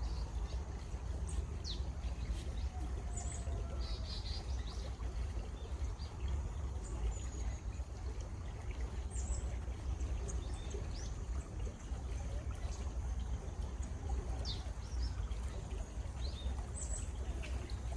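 Steady running water of a stream with a deep low rumble, while small birds chirp and call in short, scattered notes over it.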